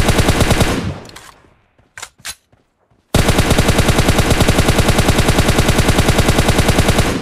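Video-game automatic gunfire at about ten shots a second: a burst that dies away within the first second, two short single cracks about two seconds in, then a long burst of about four seconds that starts and stops abruptly.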